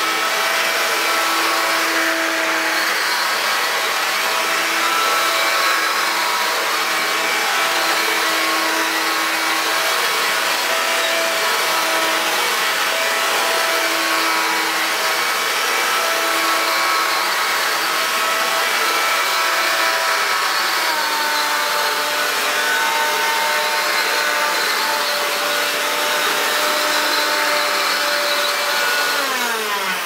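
Hoover Quick Broom 2 two-speed stick vacuum running steadily with a motor whine as it is pushed over carpet. Its tone shifts about two-thirds of the way through. Near the end the pitch falls as the motor is switched off and winds down.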